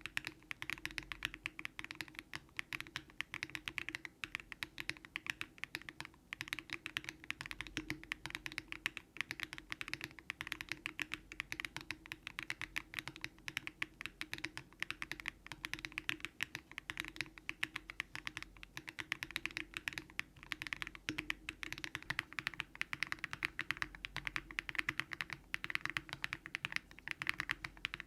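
Continuous typing on a Daring Run Polygon-7 custom mechanical keyboard fitted with Keygeek LM switches and full foam: a steady stream of key clacks with no pauses.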